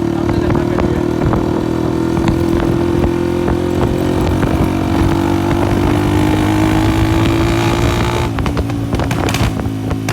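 Honda CG 125 single-cylinder four-stroke engine running loud through a burst silencer. The engine note climbs slowly, then drops off about eight seconds in.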